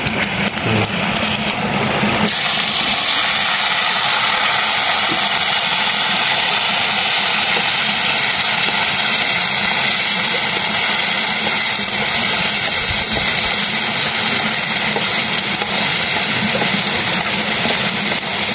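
Crabs frying in hot oil in an iron wok over a wood fire. A loud, steady sizzle begins suddenly about two seconds in as the crabs go into the oil, and keeps on while they are stirred.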